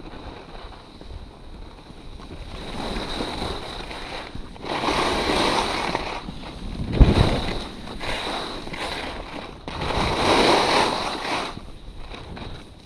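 Skis scraping and hissing over hard groomed snow through a series of turns, in long surges that are loudest about five and ten seconds in, with wind buffeting the microphone and a short low thump near the seventh second.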